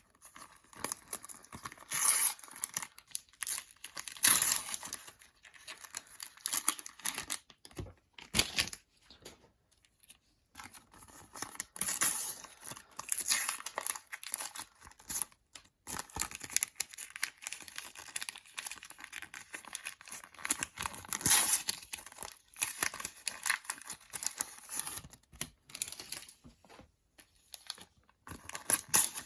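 Panini sticker packets being torn open and their wrappers crinkled, in irregular bursts with short pauses between them.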